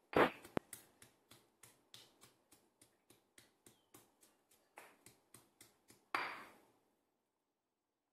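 Stone pestle pounding garlic cloves in a stone mortar: quick stone-on-stone knocks, about four a second, with a heavy strike at the start and another about six seconds in.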